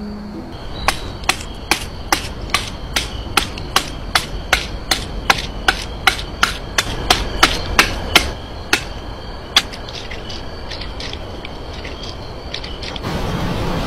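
A machete chopping into a tree root in quick, sharp blows, about two or three a second for some seven seconds, then a few slower, fainter strikes.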